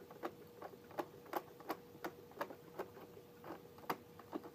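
Toy plastic vending machine's motorized bill slot slowly drawing in a dollar bill: a faint steady motor hum with a regular click about three times a second.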